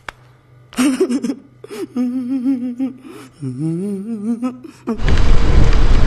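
A man's voice making drawn-out, wavering wordless vocal sounds over a faint steady hum. About five seconds in it cuts to a loud, steady rush of noise from riding a motorcycle on a rain-wet road.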